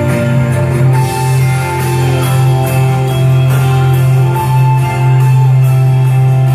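Worship music playing: sustained chords over a steady low bass note.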